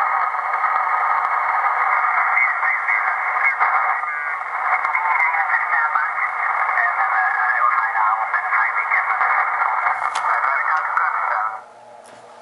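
Drake R4C receiver's audio on the 160 m band as its VFO is tuned down: narrow, band-limited hiss with garbled, off-tune voices sliding past. The audio cuts off abruptly near the end.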